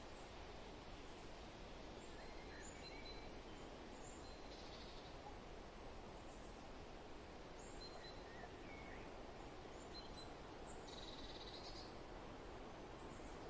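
Soft, steady wind noise with faint bird calls scattered through it: a few short chirps, and two longer buzzing calls, one about four and a half seconds in and one about eleven seconds in.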